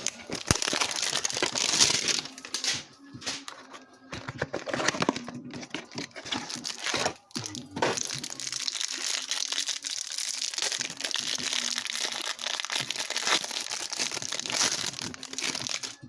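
A trading-card hanger box and its wrapping being torn open by hand, with crinkling and tearing of packaging going on almost throughout and a few short pauses.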